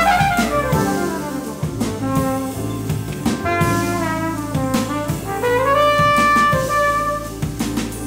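Flugelhorn playing a jazz solo line over a drum kit with cymbals, in a live jazz quintet. A little past halfway the horn slides up into a long held note.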